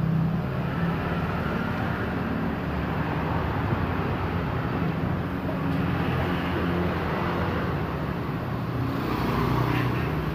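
Steady low rumble of motor vehicle engines.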